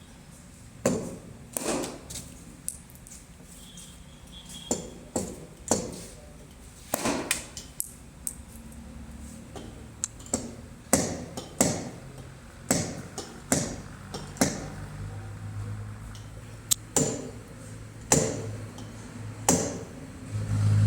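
Sharp knocks and snaps from glue-pull paintless dent repair tools working a car's sheet-metal panel, coming unevenly about once a second. A low steady hum joins in for the last few seconds.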